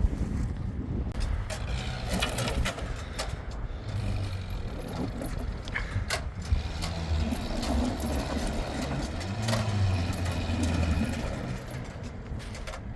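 A vehicle engine running and revving up and down, with scattered sharp knocks and clanks.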